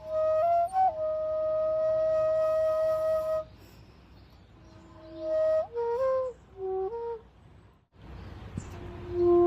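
Solo flute melody: a long held note, then a few shorter notes with a slide up between them, and one more long note near the end over a low hum.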